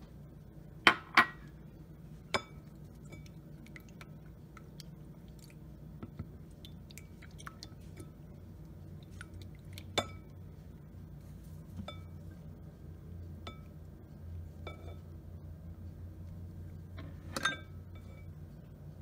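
A spatula stirring sliced cucumbers and onions into a creamy dressing in a glass mixing bowl, knocking against the glass with sharp clinks about a second in, around ten seconds and near the end, and lighter ticks in between.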